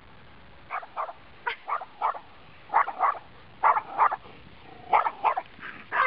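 Small Schnorkie (schnauzer–Yorkie mix) dog barking repeatedly in quick groups of two or three high-pitched barks, starting about a second in.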